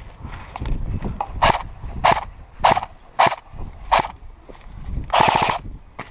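Footsteps crunching on dry ground or leaves: five steps about half a second apart, then a longer scuffing crunch near the end.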